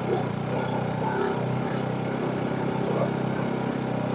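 Motorcycle engine running steadily at low speed over a rough dirt track, a constant low hum with a haze of road noise over it.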